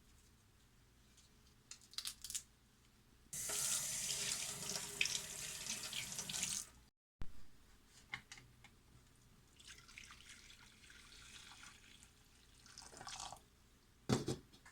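Water running from a kitchen tap into a sink for about three seconds. After a short break a quieter stream runs for a few seconds, with scattered clicks and a couple of knocks near the end.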